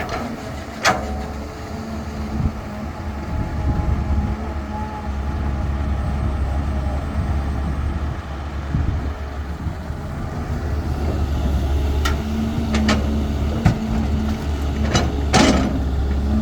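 CAT 320 excavator's diesel engine running steadily, with a higher hum coming in and out in the second half and a few sharp knocks, the loudest near the end.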